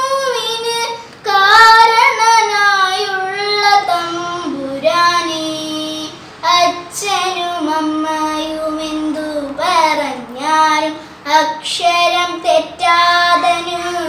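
A young girl singing a prayer song solo and unaccompanied, in long held phrases that slide between notes, with short breaths between them.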